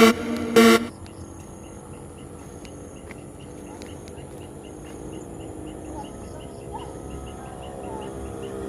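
Electronic music cuts off about a second in, leaving outdoor ambience: a steady high drone and short chirps repeating about three times a second. A low motor hum grows louder near the end.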